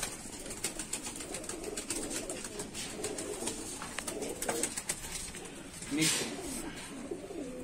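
A loft full of domestic pigeons cooing, a continuous wavering low murmur of many birds, with scattered light clicks over it.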